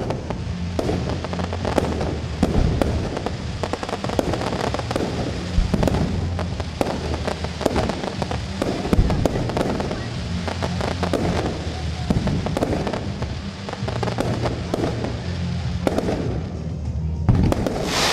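Fireworks display: repeated bangs and crackling from aerial shells and rockets bursting, with music playing underneath. A loud hiss and crackle swells near the end.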